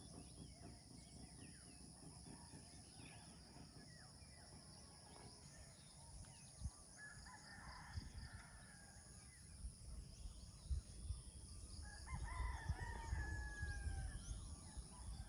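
Roosters crowing, faint: one crow about seven seconds in and a longer one about twelve seconds in, each falling slightly in pitch at the end. A low rumble grows louder through the second half.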